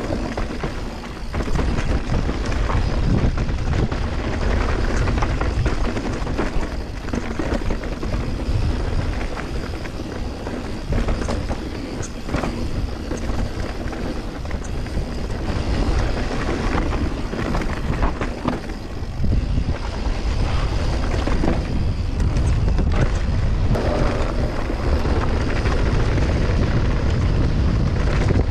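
Mountain bike descending a dirt trail at speed: wind rushing over the microphone, tyres rolling on dirt, and frequent short knocks and rattles from the bike over bumps.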